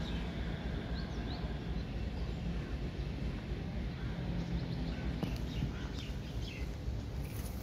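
Steady outdoor background noise with a few short, faint chirps about a second in and scattered light clicks in the second half.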